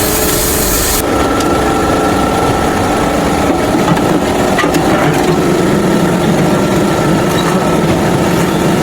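Steady, continuous abrasive rubbing of a tool working a surface, in the manner of sanding or rasping.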